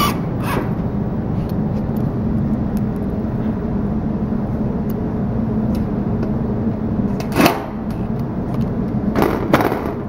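A steady, fairly loud mechanical hum with a few sharp knocks; the clearest knock comes about seven and a half seconds in, and two more follow close together near the end.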